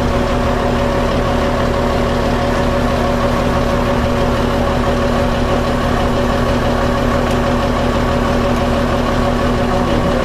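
An engine idling at a steady speed: a constant hum with an even pitch over a low rumble.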